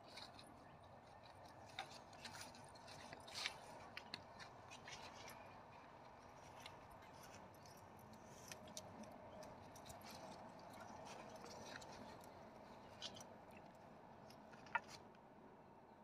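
Near silence with faint scattered clicks and taps as small containers and a wooden board are handled over a steel basin, one sharper click near the end.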